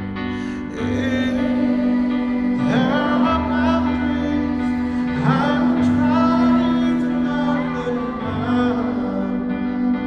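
A male pop singer sings a slow live ballad over held backing chords with a steady bass note that changes every couple of seconds. The voice comes in several long, sliding phrases, heard from the audience in a large arena.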